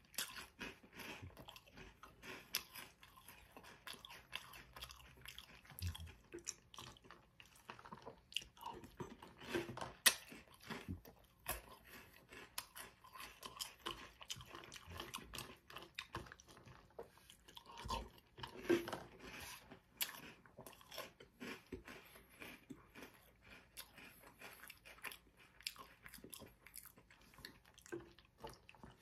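Close-up chewing of Reese's Puffs cereal in milk: a continual run of short, wet crunches and crackles as the puffs are bitten and chewed.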